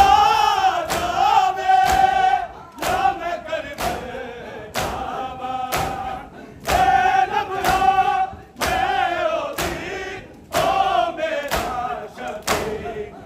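Men chanting a noha mourning lament, with a crowd beating their chests in unison about once a second, each stroke a sharp slap.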